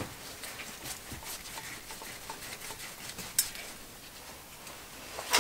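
Scattered small clicks and scrapes of a screwdriver working on the terminal screws of an electric motor's terminal box, with sharper clicks at the start, about three and a half seconds in, and at the very end.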